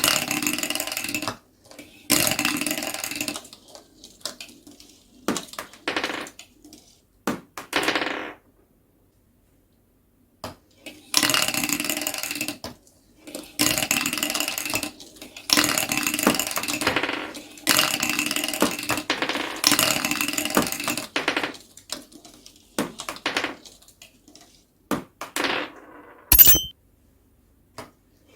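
Marbles rolling and clattering along a marble-run track, in repeated bursts of one to two seconds with short quiet gaps between them. A single sharp clink comes near the end.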